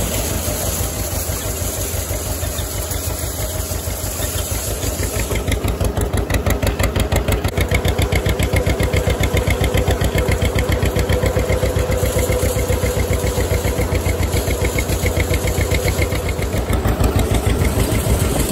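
A tractor engine runs steadily as it pulls a round baler that is baling hay. About five seconds in, the engine grows louder and takes on a fast, even pulse.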